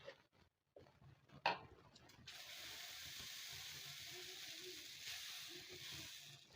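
A sharp knock about a second and a half in, then a steady sizzling hiss from a hot tawa as set dosa batter cooks on it.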